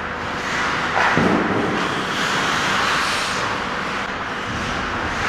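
Ice hockey play heard from the goal: skate blades scraping and carving the ice, with a sharp knock of stick or puck about a second in.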